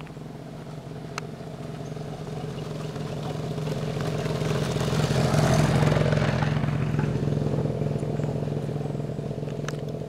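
A motor vehicle engine running with a steady low hum, swelling to its loudest about halfway through and then slowly fading.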